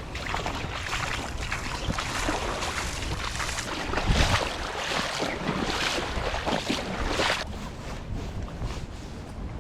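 Wind buffeting the microphone over breaking surf, rising and falling in gusts with a low rumble.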